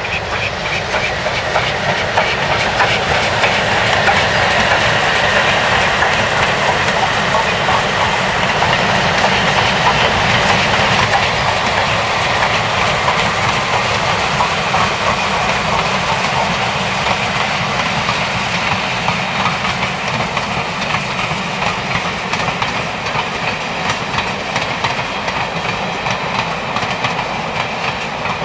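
Train running along the line: a steady, loud rumble with wheels clattering over the rail joints. It builds over the first few seconds and eases slightly near the end.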